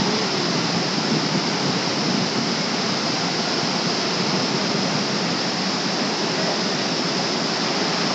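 Lower Yosemite Fall pouring, a steady, even rush of falling water.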